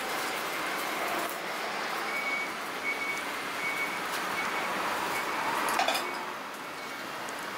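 Steady background noise of a busy street, with a row of about five short, high electronic beeps spaced under a second apart in the middle, and one sharp clack about six seconds in.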